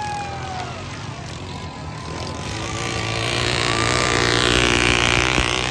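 Racing riding lawn mowers' small engines running hard around a dirt track, growing louder about halfway through as the pack passes close by.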